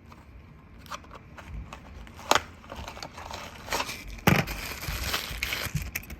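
Plastic packaging crinkling and rustling as it is handled, with a few sharp knocks, the loudest about two and four seconds in.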